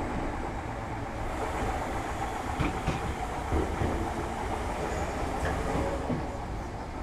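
Class 313 electric multiple unit heard from inside its DMSO motor coach while running: a steady noise of wheels on rail, with a few knocks over rail joints around the middle. The noise eases slightly near the end.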